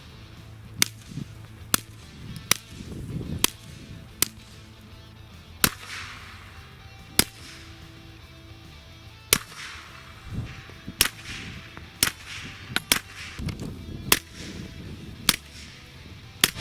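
Glock 17/19 pistol in a KPOS G2 carbine kit, fitted with a Rotor-43 muzzle brake, firing about fifteen single shots at an irregular pace of roughly one a second, each a sharp crack, a few coming in quick pairs.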